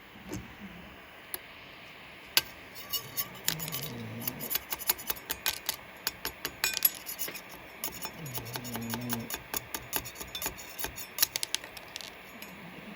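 Hands working at a 3D printer's print bed: irregular sharp clicks and taps with a faint rasping rub, and two short low voice murmurs about four seconds in and again near nine seconds.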